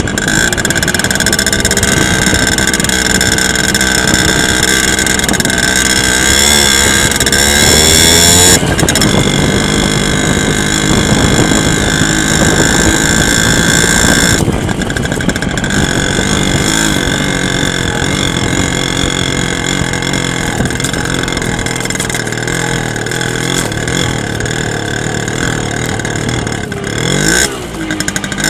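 Simson S50 moped's 50 cc two-stroke single-cylinder engine running under load on a test ride after its holed carburettor float and contact-breaker points were replaced. The engine note climbs, then drops sharply about nine seconds in and again about fourteen seconds in, with a brief dip and a rising rev near the end.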